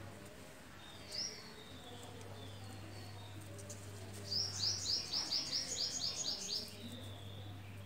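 A small bird calling: one short high chirp about a second in, then a quick run of about ten high, falling notes near the middle, over a low steady hum.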